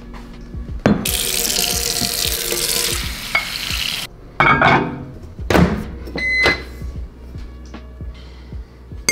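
Kitchen tap running into a glass bowl of oats and protein powder for about three seconds, starting about a second in. Then a few knocks and a short ringing clink as the glass bowl and jars are handled on the counter.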